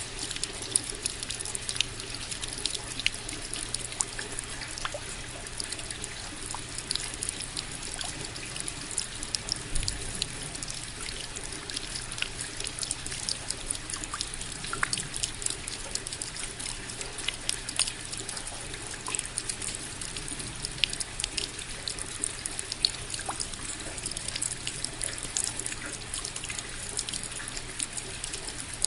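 Steady rain: an even hiss with many sharp, separate drop hits ticking through it.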